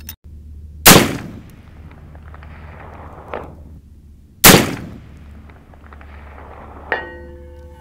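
Two booming shots from a Sharps rifle in .45-120, about three and a half seconds apart, each trailing off in echo. Near the end a fainter metallic clang that rings on for about a second: the bullet striking a steel target.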